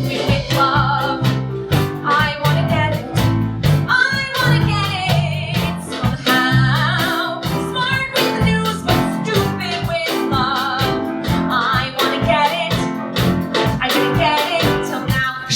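A live band with electric bass and drum kit plays an up-tempo number, with a woman singing wavering, vibrato-laden lines over it.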